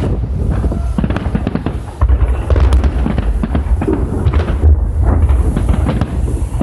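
Fireworks salute going off close by: a dense, continuous run of booms and crackling bangs as shells burst overhead, with a brief lull about two seconds in.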